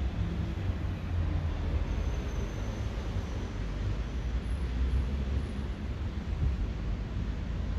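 Wind blowing, a steady rushing noise with a deep low rumble.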